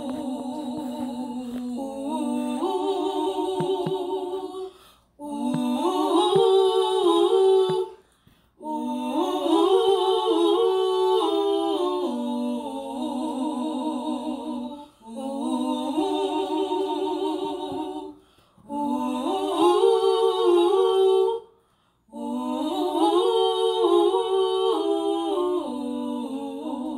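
Unaccompanied wordless singing: a slow melody in phrases of two to four seconds, with short breaks between them.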